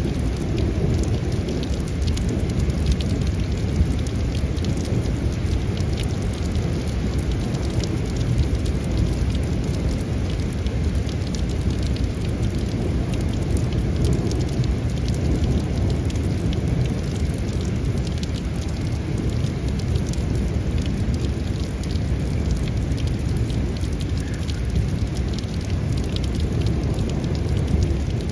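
Heavy thunderstorm rain falling steadily. Close drops tick many times a second over a deep, steady rumble.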